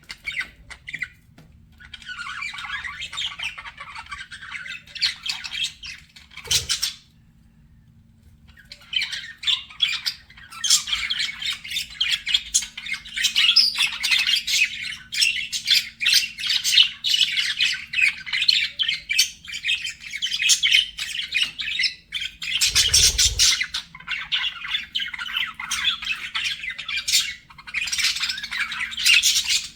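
Budgerigars chattering and warbling in a fast, continuous stream of chirps and squawks, broken by a pause of about two seconds some seven seconds in. There are two dull thumps, one just before the pause and one about two-thirds of the way through.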